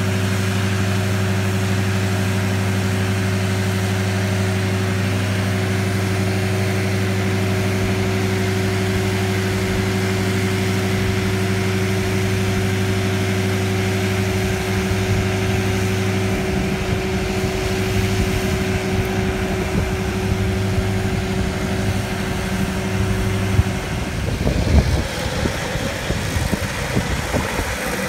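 Stump grinder engine running loudly at a steady speed with a low, even hum. After about two-thirds of the way through, the hum breaks up into rougher, uneven machine noise with a few knocks.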